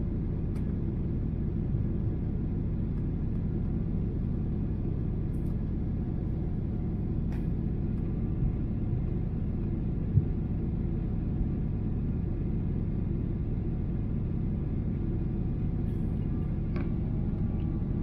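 Steady low cabin drone of a Boeing 777-300ER in flight, the noise of its GE90-115B engines and the airflow heard from a seat behind the wing. A few faint clicks, and a short chime-like tone near the end.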